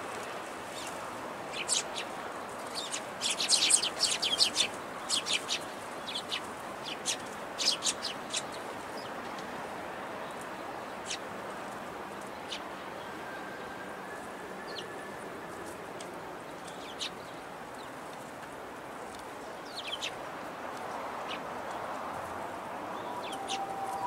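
Eurasian tree sparrow chirping. Short, high chirps come in quick runs during the first several seconds, then only a few single chirps, over steady background noise.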